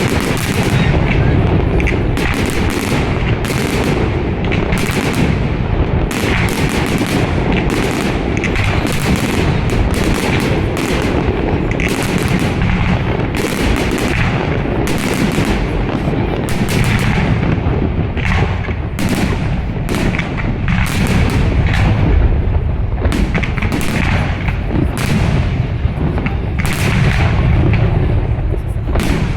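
Fireworks display: shells bursting in quick, overlapping bangs, often two a second, over a constant low rumble.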